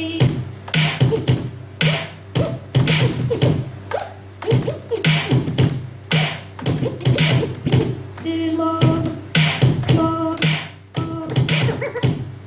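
Intro music with a steady beat, one heavy hit about every second, with busy percussion between the hits and short repeated pitched notes in the second half.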